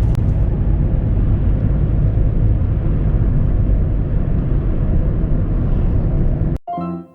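Steady low road-and-engine rumble of a car driving, as picked up by a dashcam microphone. It cuts off suddenly near the end, where piano music begins.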